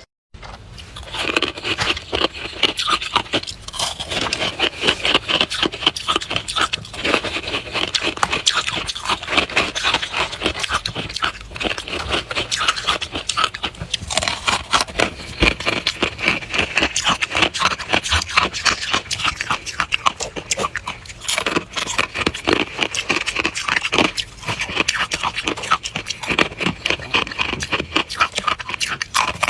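Powdery freezer frost being chewed: a dense, continuous run of rapid crunches that starts after a split second of silence.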